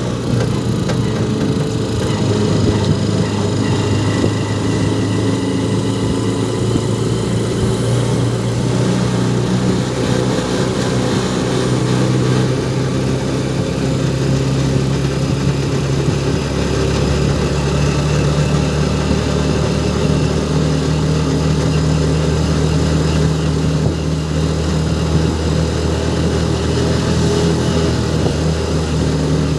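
An engine running steadily, its note shifting slightly a little past halfway.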